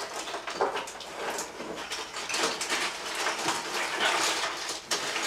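Cardboard jigsaw puzzle pieces being broken apart and swept together by hand: an irregular clatter of small clicks, snaps and scrapes.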